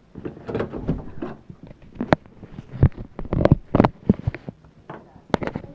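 Irregular knocks, taps and rustling of dolls and plastic toy beds being handled and set down.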